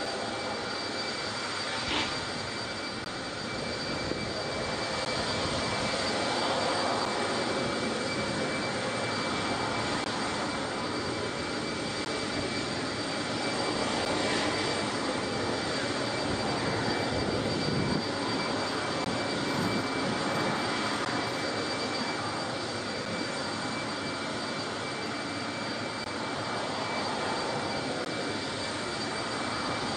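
Jet aircraft engines running steadily: an even rushing noise with a thin, steady high whine on top.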